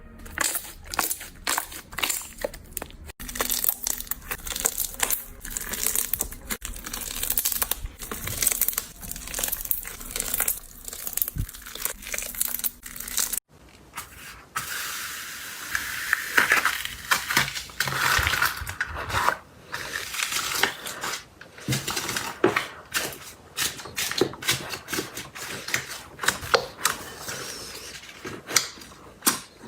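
Slime being squeezed, poked and stretched by hand: a dense, irregular run of sticky crackles and pops, with a brief break about thirteen seconds in.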